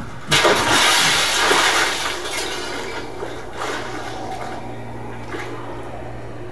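A sudden loud rushing, crashing noise that sets in about a third of a second in and fades over the next few seconds, over a steady low hum: a noise passage in the piece's original dance score.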